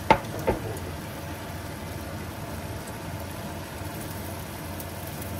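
Egg omelette sizzling in a frying pan over a steady low hum, with two sharp clacks of a utensil against the pan just after the start.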